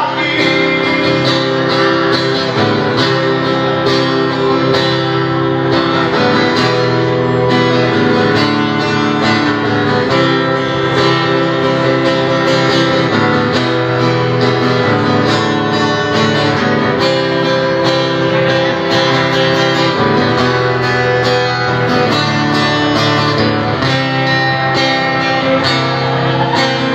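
Instrumental guitar break in a song: guitar strummed and picked over a steady backing, with no singing.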